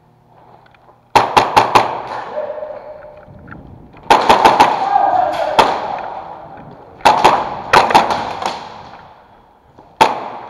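Airsoft guns firing in quick strings of sharp cracks, four volleys about three seconds apart, each shot echoing and dying away slowly in a large warehouse hall.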